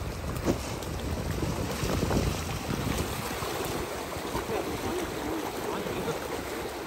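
River water rushing steadily, with wind rumbling on the microphone.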